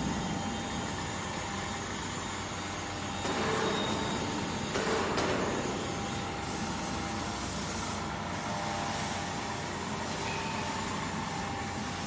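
CNC straight knife grinder running, its electric grinding-head motor giving a steady machine hum with a faint steady tone. It swells louder and rougher twice, about three seconds in and again about five seconds in.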